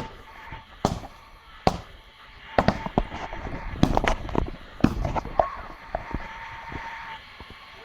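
A box of fireworks (a firework cake) firing off in an irregular string of sharp bangs and cracks, roughly one every half second to second. A thin steady whistle starts about five seconds in.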